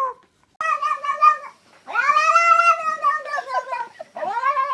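A cat yowling in three long, drawn-out calls, the middle one the longest.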